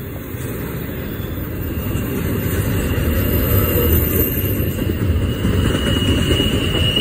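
Double-stack container train's well cars rolling past with a heavy low rumble that swells about two seconds in. A steady high wheel squeal comes in at the same time and grows stronger toward the end.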